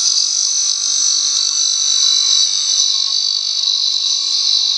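Small electric bench grinder with a newly fitted abrasive disc cutting through steel wire rope: a loud, steady, high-pitched grinding hiss, with the motor's steady hum underneath.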